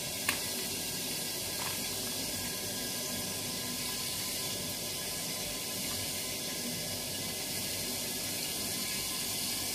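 Steady hiss of chicken frying in oil in a covered pan, with one light click near the start.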